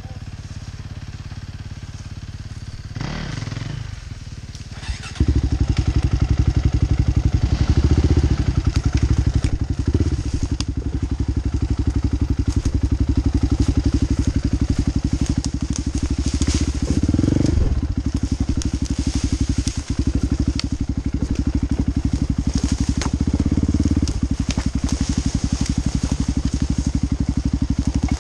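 Dirt bike engine heard close up from the bike, quiet at first, then suddenly much louder about five seconds in as the throttle opens. It runs on under load, with the revs rising and falling several times.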